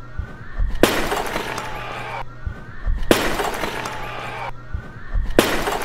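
A clay pottery jar smashing on a hard stage floor three times, about two and a half seconds apart. Each is a sharp crash followed by the clatter of shards scattering.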